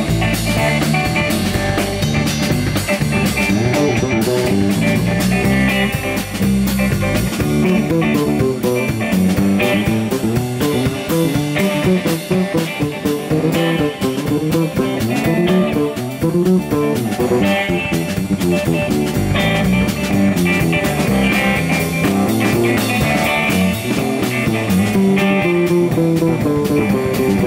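Instrumental blues-rock: an electric guitar playing over bass guitar and a drum kit, with no vocals.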